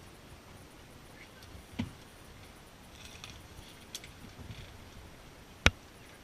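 Two sharp clicks over faint rustling: a small one about two seconds in and a much louder, very short one near the end.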